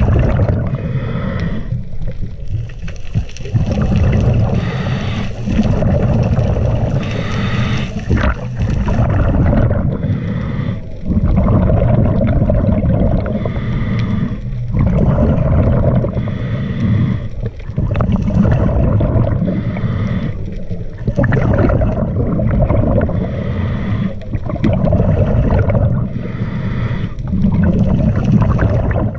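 Scuba diver breathing through a regulator underwater, a breath every few seconds: a hissing inhale, then a noisy rush of exhaled bubbles.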